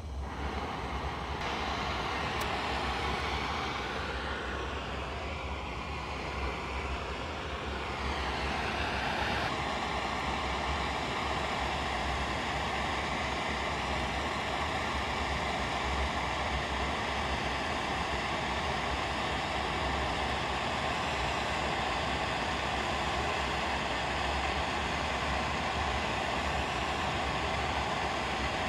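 Large glassworking torch burning a big, bushy annealing flame with a steady rushing hiss, heating a few inches of glass tube before it is coiled on the lathe. The flame grows a little louder about eight seconds in.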